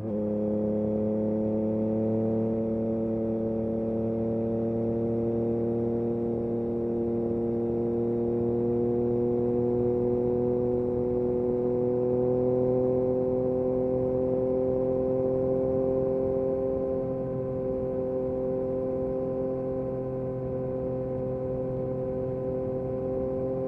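Yamaha MT-09 SP's inline three-cylinder engine through an Akrapovic exhaust, running at speed under steady throttle. Its note holds steady and climbs slowly in pitch as the revs build.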